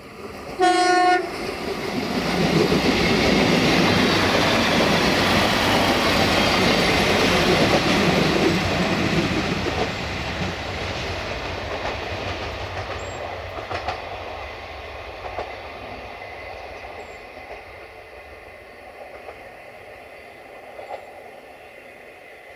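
Romanian DH2 diesel-hydraulic railcar giving one short horn blast about a second in, then passing close by with engine and wheel-on-rail clatter. The noise is loudest for several seconds and then fades slowly.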